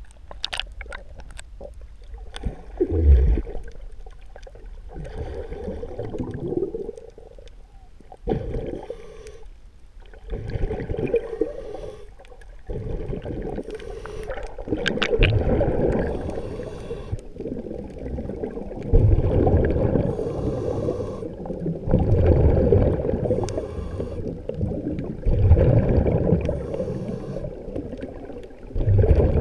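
Muffled underwater gurgling and swishing heard through a submerged GoPro housing as it moves through the water, rising and falling in surges every few seconds.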